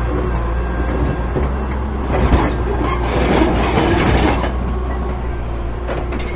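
Excavator diesel engine running steadily under load while its hydraulic rock breaker works against rock. A louder stretch of noise comes from about two to four and a half seconds in.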